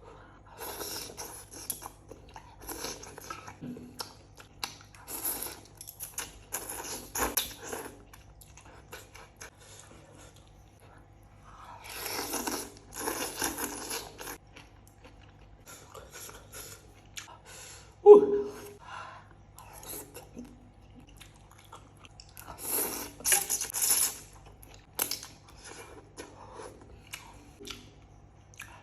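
Close-miked chewing and crunching of noodles and fried jengkol, with many short wet clicks. There are two longer noisy stretches, about twelve and twenty-three seconds in.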